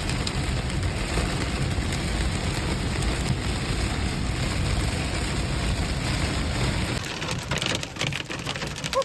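Heavy rain pounding on a moving vehicle, with a steady low rumble of road and driving noise beneath. About seven seconds in the low rumble eases and the rain turns patchier, with sharp spattering ticks.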